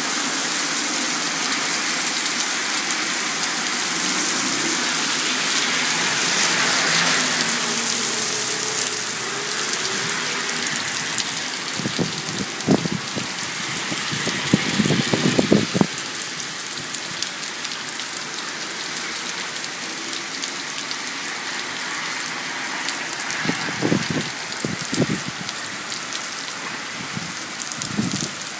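Heavy rain pouring onto a wet street, a steady loud hiss. A vehicle engine runs under it for the first several seconds. Scattered low thumps come in two clusters, around the middle and near the end.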